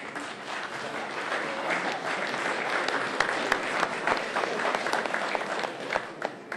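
Audience applauding, a dense clatter of handclaps that swells about a second in and dies away near the end.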